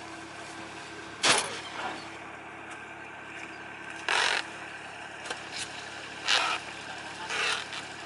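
An engine running steadily in the background, with four short rustling bursts as woven plastic rice sacks are handled at the combine's grain outlet.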